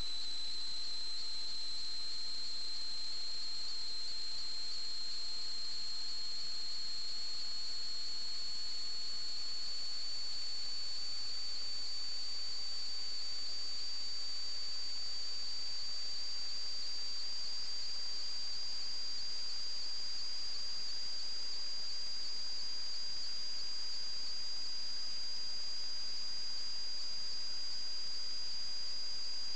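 Steady high-pitched electronic whine that slowly rises in pitch, with a fainter, higher tone drifting down above it, over a constant hiss.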